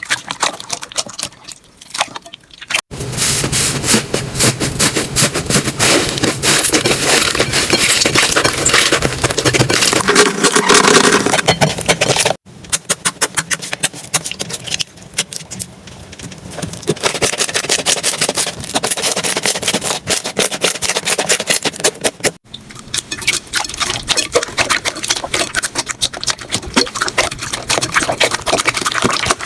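Slime being squeezed and pressed by hand, making dense, rapid crackling and popping. It is split by abrupt cuts into several sections of different loudness, with a quieter stretch at the start.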